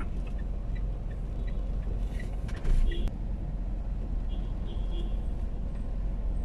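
Steady low engine and road rumble heard inside a car creeping forward in slow traffic, with a brief louder thump about two and a half seconds in.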